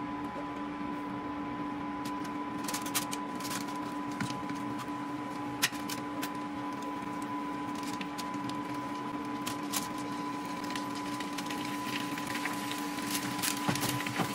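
Metal kitchen tongs clicking and scraping against a stainless-steel pot as chicken wings are picked out one by one, with scattered sharp clicks over a steady hum.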